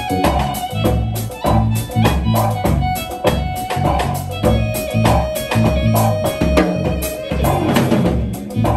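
Live jazz trio playing: an electric bass line and drum kit in a steady groove under held keyboard chords.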